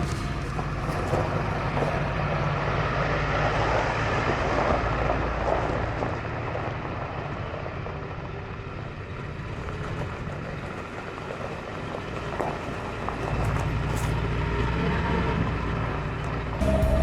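A vehicle engine running with a steady low rumble; it eases off around the middle and then builds back up.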